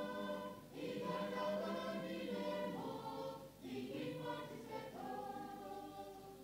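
Church choir of men's and women's voices singing a hymn together, in phrases broken by short breaths.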